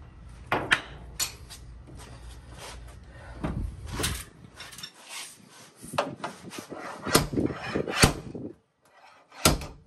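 A heavy slide-hammer dent puller, hooked onto pins welded into a car door's dent, clinking as it is fitted, then giving sharp metallic knocks as it is struck to pull the dent out; the hardest knocks come in the last few seconds.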